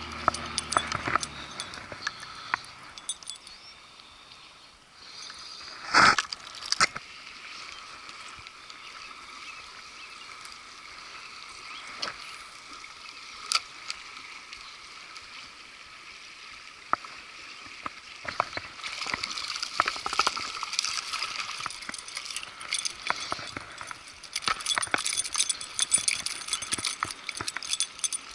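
Small creek water running steadily, with scattered clicks and knocks from a spinning rod and reel handled close by and one loud bump about six seconds in. From about two-thirds of the way through, busier rustling and clicking as a jacket sleeve brushes near the microphone.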